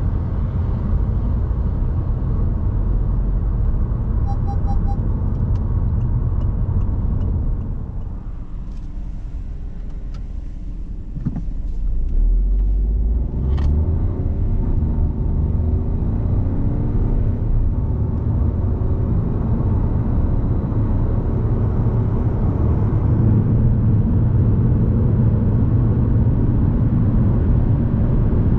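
Cabin noise of a Citroën C3 Aircross on the move: its 1.2-litre turbocharged three-cylinder petrol engine and tyre rumble. The sound dips about eight seconds in, then comes back and builds steadily as the car accelerates from a standstill.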